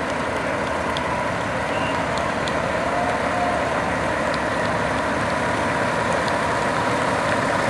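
Aerial ladder fire truck's diesel engine running as the truck rolls slowly past, growing gradually louder as it approaches.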